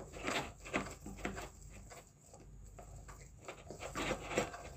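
Red plastic hand-cranked chopper being turned, its blades cutting through raw boneless chicken cubes to mince them: an irregular run of scraping clicks and knocks.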